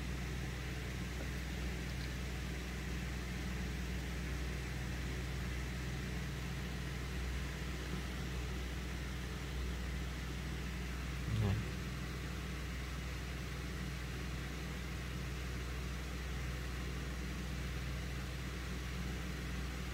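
Steady low hum of background noise, with one brief low sound about eleven and a half seconds in.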